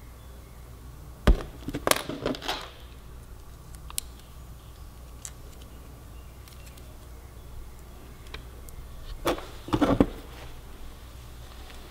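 Two short bursts of sharp clicks and snips from hand tools working on motorcycle turn-signal wiring, one about a second in and one near the end, with a lone tick in between.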